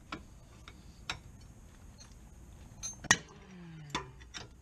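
Sharp metallic clicks and clinks of a wrench with a pipe slipped over it as a breaker bar, worked on a tight rear brake caliper bolt. Several light clicks come first, then a loud sharp click a little after three seconds in, followed by a short low sound falling in pitch and another click about a second later.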